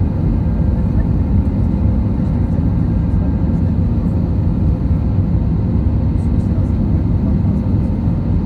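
Steady cabin noise of an Airbus A320-family airliner in the climb after takeoff: engine and airflow noise, heavy in the low end with a faint steady hum, unchanging throughout.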